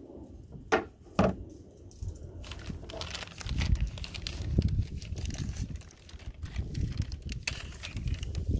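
Two sharp clicks about a second in, then several seconds of irregular rustling and handling noise with low thumps, as hands work with the hood strut parts.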